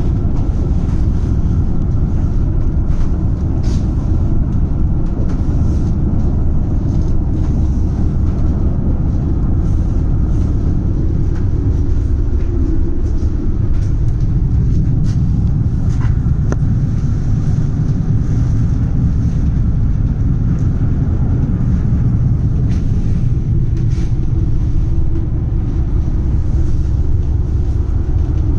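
Tram running along the track: a steady low rumble with scattered short clicks and rattles.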